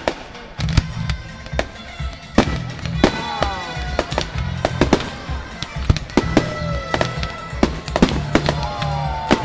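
Fireworks going off in a rapid, irregular series of sharp bangs and crackles, with whistling tones gliding downward a few times, over music with a steady bass.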